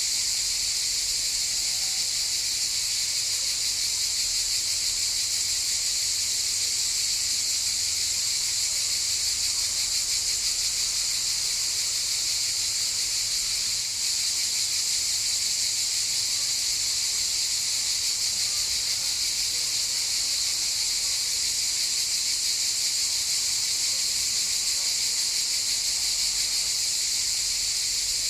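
Chorus of cicadas buzzing in one continuous high-pitched drone, steady throughout apart from a momentary dip about halfway through.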